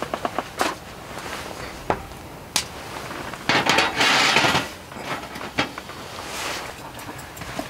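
Cookware and utensils handled on a wooden table: a frying pan and knife knocking and clinking against wood, a few separate knocks, with about a second of rushing noise in the middle.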